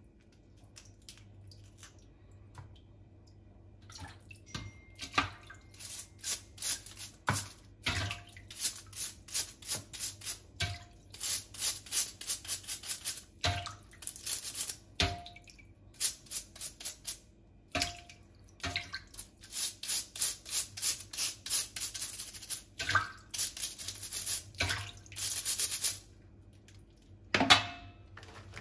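Stiff-bristled scrubbing brush scratching over a cooked blue swimmer crab's shell in quick repeated strokes, about three a second, with short pauses between runs, over a bowl of water. Near the end a single louder splash of water.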